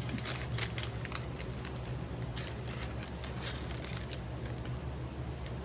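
Close-up crunching of a crisp taco shell being bitten and chewed, in many short irregular crackles that thin out over the last couple of seconds.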